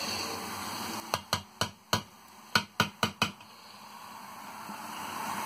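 About eight sharp knocks in quick succession over two seconds, then diced onion and salo frying in a pan, the sizzle growing louder.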